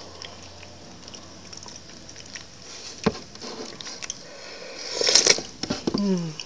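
A person slurping fish soup straight from the bowl: one short, loud slurp about five seconds in, then a brief falling voiced sigh. Before it there is a quiet stretch with a single faint click.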